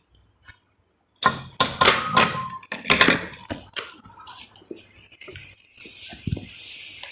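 Two metal-wheel Beyblade spinning tops battling: after a short hush, a quick run of sharp clacks and clicks as they collide, settling into a steadier high whirring hiss as they spin.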